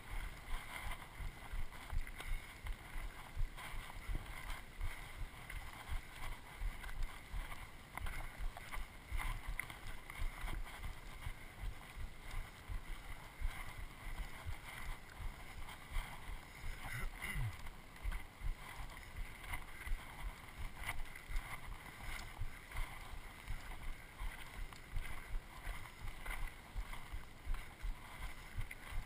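Footsteps of people walking up a dry dirt-and-grass trail, heard as a run of soft, uneven thumps, two or three a second, over a steady rustle of clothing and brush.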